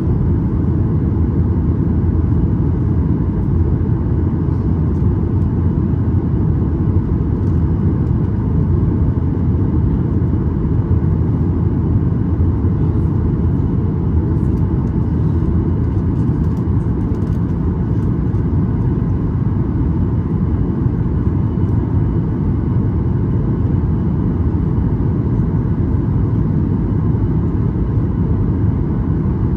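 Steady low roar of a Boeing 737 MAX 8's passenger cabin in flight: airflow and engine noise, even throughout.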